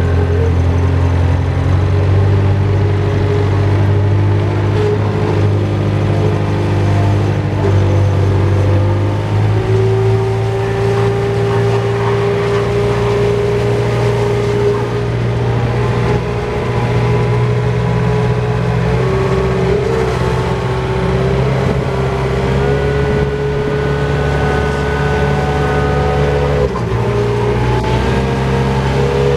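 Bobcat skid-steer loader's diesel engine running steadily, heard from the operator's cab, with a pitched whine over the engine note as it drives and works. The pitch steps up about a third of the way through and drops briefly near the end.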